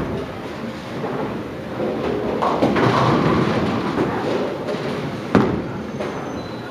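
Bowling-alley din: balls rolling down the lanes and pins clattering, swelling a few seconds in, with one sharp knock about five seconds in.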